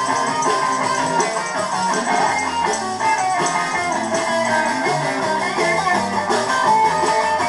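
Rock and roll band playing: electric guitar and electric bass, with no singing, heard through a television's speaker.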